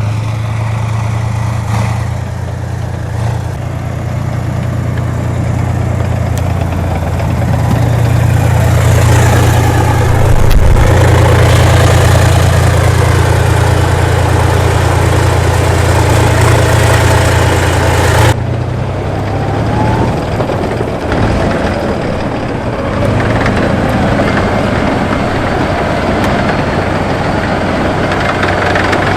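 T-72 tank's V12 diesel engine running with a heavy, steady low hum. It grows louder about a third of the way in, then breaks off abruptly and carries on a little quieter.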